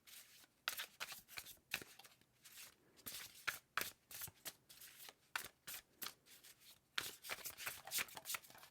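A tarot deck being shuffled by hand: a quick, irregular run of crisp card flicks and slides.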